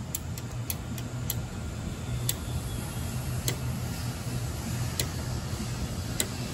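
Ratcheting PVC pipe cutter clicking at irregular intervals as it is worked on a PVC condensate drain pipe, over a steady low machine hum.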